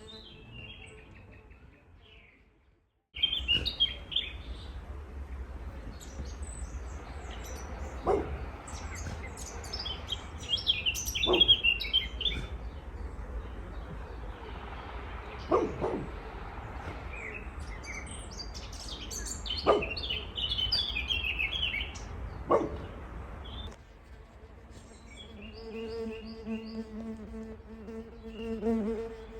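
A guard dog barking, single barks every few seconds, five in all, over birds chirping and a low steady rumble. Near the end this gives way to a fly buzzing.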